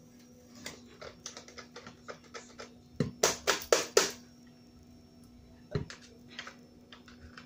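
Electric hand mixer's beaters tapped and knocked against a glass mixing bowl to shake off whipped egg white: scattered light clicks, then a quick run of about five sharp knocks about three seconds in, and one more knock a couple of seconds later.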